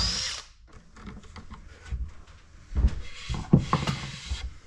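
A power drill runs for a brief burst, then wooden parts and bar clamps are handled on a workbench as a glued-up armrest assembly is taken apart. There is rubbing and several knocks of wood near the end.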